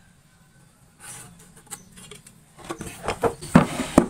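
Light knocks and rubbing of wood being handled in a woodworking job. It is almost quiet for the first second, then a soft rustle, then scattered knocks from about two and a half seconds in, the loudest near the end.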